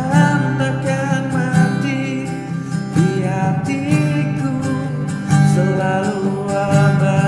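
Music: a song with guitar and a sung melody.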